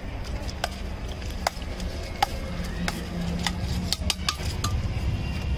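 A steel spoon scooping a cooked pea mixture out of a steel bowl, with scattered clinks and scrapes of metal on metal. Under it runs a steady low background rumble.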